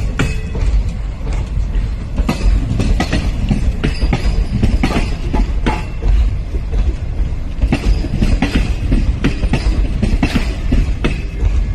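A train running past with a heavy low rumble and dense, irregular clattering of wheels over the rail joints.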